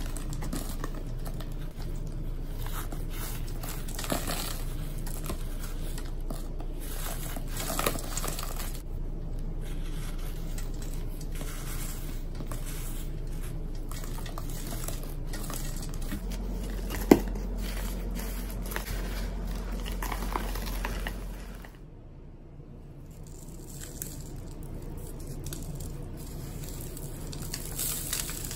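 Hands squeezing and crushing chunks of dyed chalk, a steady run of dry crunching and crackling as the lumps crumble to powder, with one sharp snap a little past the middle. The crunching drops softer for a few seconds about two thirds of the way through.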